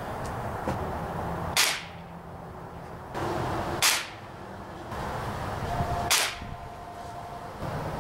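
Three shots from a Gamo magnum spring-piston air rifle, a little over two seconds apart, each a short sharp crack.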